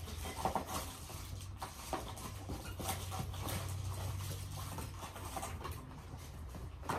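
Cardboard box and its contents being handled: scattered soft knocks, clicks and rustles over a low steady hum.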